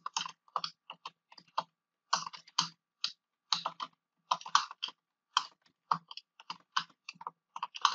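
Typing on a computer keyboard: irregular runs of keystrokes with short pauses between words.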